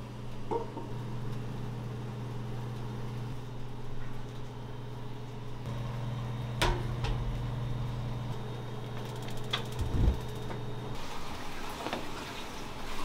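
Commercial kitchen sounds: a steady low machine hum with a few sharp knocks and clatters of trays and utensils, the loudest a dull thump about ten seconds in. A hiss comes up near the end.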